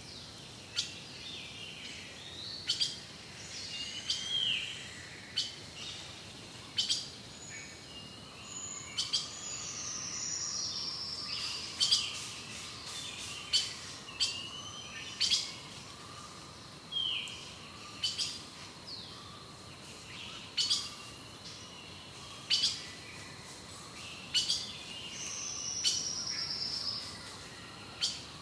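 Rainforest birds calling: short sharp chirps about every one to two seconds, mixed with sliding whistled calls, over a steady high-pitched tone.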